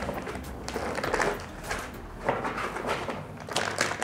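Rustling and knocking of packaging as a microphone is lifted out of its box: irregular crinkles and small bumps.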